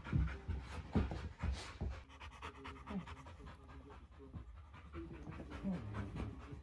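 Dog panting rapidly, with a few louder bumps in the first two seconds.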